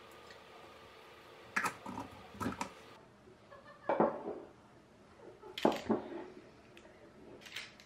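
Kitchen handling sounds: about five separate knocks and clinks of dishes and utensils being picked up and set down.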